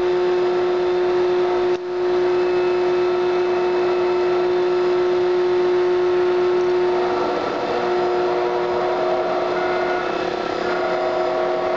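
Audio from the Antonov An-24's ADF radio compass receiver while it is being tuned to a ground beacon: a steady tone over hiss. The sound cuts out for an instant just before two seconds in. From about seven seconds in the tone weakens and higher tones come up as the receiver picks up the ground station's modulation.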